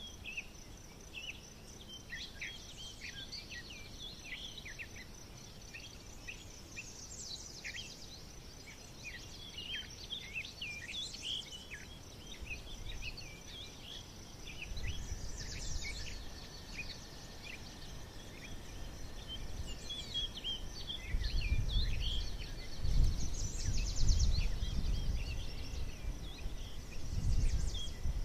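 Several forest birds chirping and singing in short, scattered calls, over a continuous high, fast insect-like trill. A low rumble swells in the second half and becomes the loudest sound near the end.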